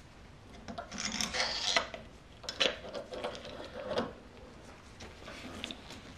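Gloved hands rub and scrape a wrench against a motorcycle fork damper cartridge as the rod guide is turned by hand, with a couple of sharp clicks partway through.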